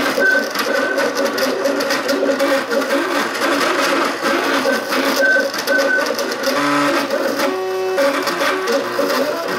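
MakerBot Cupcake CNC 3D printer running a print: its stepper motors whine in short tones that jump from pitch to pitch as the print head moves, over a steady mechanical whir.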